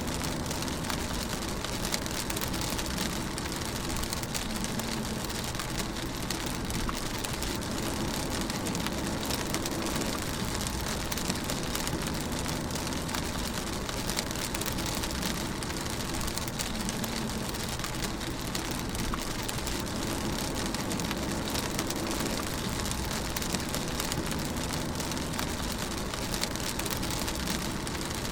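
Steady rain falling on a car's roof and windscreen, heard from inside the moving car, with many fine drop ticks over a constant low rumble of the car and road.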